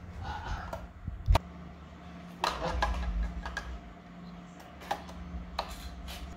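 Metal beaters being fitted into an electric hand mixer, which is not running: a sharp click about a second in, then several lighter clicks and rattles of metal against the mixer's plastic body.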